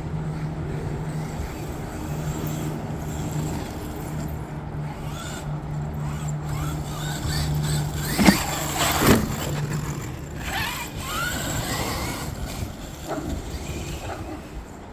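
Traxxas XRT electric RC monster truck running, its motor giving a steady hum with a few rising and falling revs, and two sharp knocks about eight and nine seconds in.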